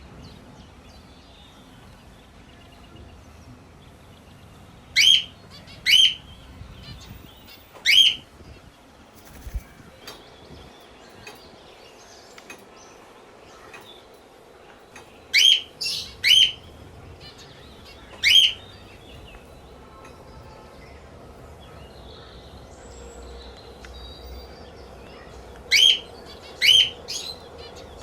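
Pet parrot giving short, loud, shrill calls in three clusters of three or four calls, about ten seconds apart, with faint bird chatter between them.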